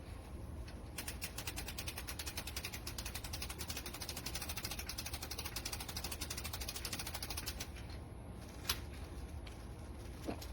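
Patio umbrella crank turning, its ratchet making a rapid, even run of clicks for several seconds, then stopping. Two single sharp clicks follow near the end.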